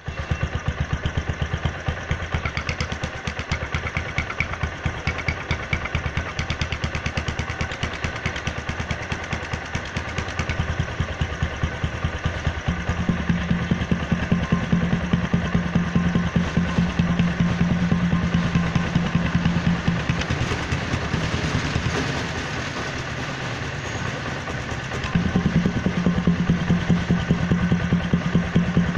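Small commuter motorcycle engine idling, heard close at the exhaust silencer that is being modified to give it a KTM-like exhaust note. It runs as a rapid, even pulsing that grows louder and deeper about 13 seconds in, eases off a little past 20 seconds, and comes up again near 25 seconds.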